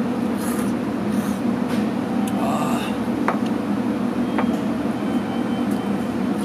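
Noodles slurped from a bowl in a few short hissy bursts during the first three seconds, over the steady low drone of a railway platform with a train standing at it. Two light clicks come a little after the middle.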